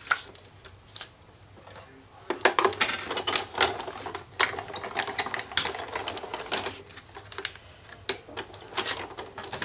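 Hand-cranked die-cutting machine being cranked, rolling a sandwich of cutting plates with a scalloped-oval metal die through its rollers: a dense run of clicks and rattles starting about two seconds in, with plastic plates clattering near the end.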